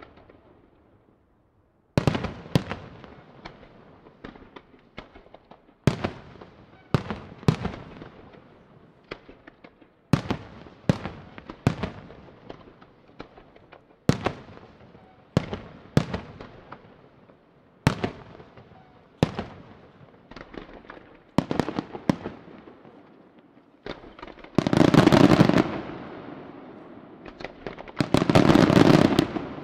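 Senatore Fireworks aerial shells burst one after another from about two seconds in, with sharp bangs every second or two, each trailing off in an echo. Near the end come two longer, louder stretches of dense, rapid bursting.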